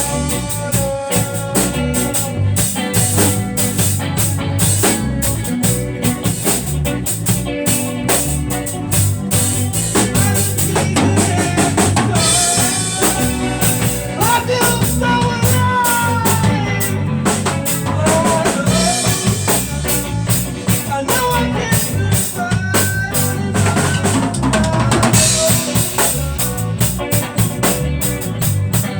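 Music played on a drum kit with a steady beat of bass drum, snare and rimshots, over a repeating bass line, with a gliding melodic lead line.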